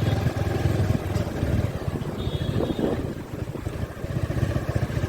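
Motorcycle engine running while being ridden, with wind rushing over the microphone.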